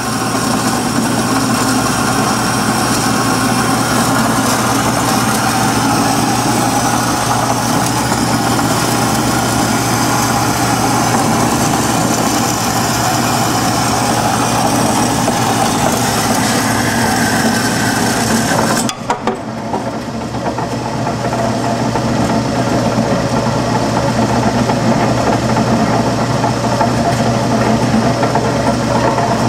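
Wells Model 1200 horizontal band saw running, its 1-1/2 HP three-phase drive humming steadily while the blade cuts bar stock dry at slow speed with a low feed rate. The sound breaks off briefly about two-thirds of the way through, then carries on.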